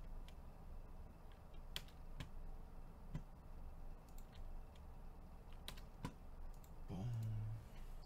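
Faint, scattered clicks of a computer keyboard being typed on, a few keystrokes at a time, with a brief low hum about seven seconds in.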